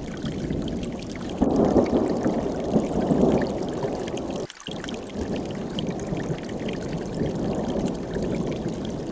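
Mountain stream rushing and gurgling over rocks, a steady wash of water noise. It gets louder for a few seconds after the first second, cuts out for an instant about halfway, then carries on.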